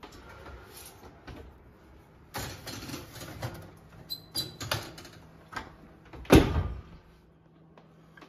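Wall oven door opened and a metal baking sheet slid onto the oven rack with scraping and clinks, then the door shut with a loud thud about six seconds in.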